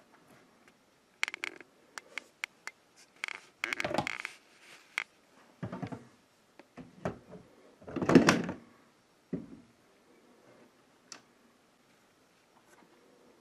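Scattered knocks, clicks and short scrapes of hands working on a window frame being installed, the loudest a half-second scrape about eight seconds in.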